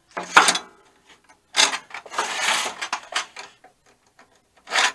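Drawer-slide guides being pried and pulled out of a sheet-steel machinist's tool box, scraping and clicking against the cabinet in several short bursts. The longest burst comes about two seconds in.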